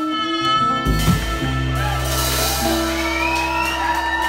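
Small band playing live: acoustic guitar, trumpet and drum kit, with long held notes over a low bass tone and a bright cymbal wash about two seconds in.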